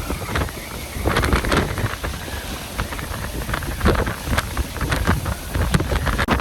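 Hurricane winds gusting hard against the microphone, a loud rushing roar broken by frequent sharp, uneven blasts of buffeting.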